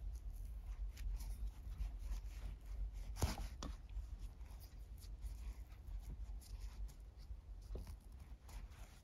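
Faint handling noise of nylon paracord being worked with a metal lacing needle: soft rustles and small clicks, with one sharper tap about three seconds in, over a low steady hum.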